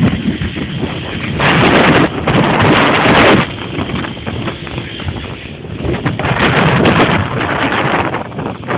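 Wind buffeting the microphone of a camera moving along a busy road, rising and falling in loud gusts over the mixed noise of passing traffic.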